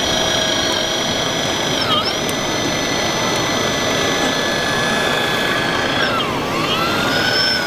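Hydraulic pump of an RC Volvo EC480D model excavator whining steadily and high as it digs and swings. The pitch dips briefly about two seconds in, and again near six seconds before climbing back.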